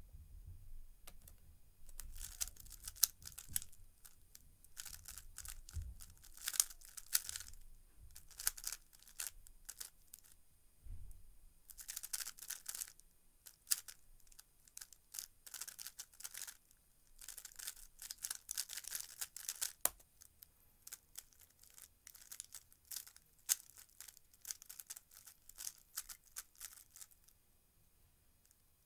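A plastic 3x3 speedcube being turned very fast: rapid clattering of layer turns in bursts with short pauses, first while it is scrambled and then through a timed solve. A single dull knock about eleven seconds in; the turning stops shortly before the end.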